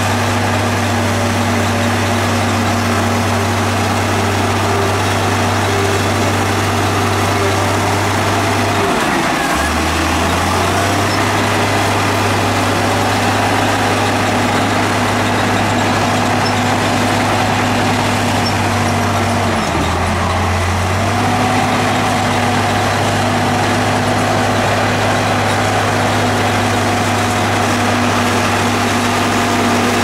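Heavy earthmoving machine's diesel engine running steadily, its pitch dipping briefly twice, about nine and twenty seconds in.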